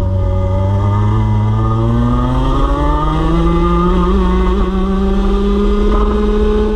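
Racing kart engine heard from on board. Its pitch sits low through a corner about a second in, then rises steadily as the kart accelerates out onto the straight, and holds high near the end.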